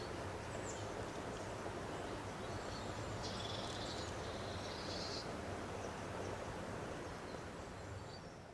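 Steady background noise with a low hum, and a few faint high chirps about three to five seconds in.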